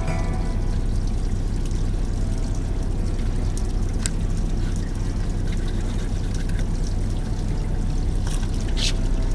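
Water pouring steadily, with a couple of light clicks partway through.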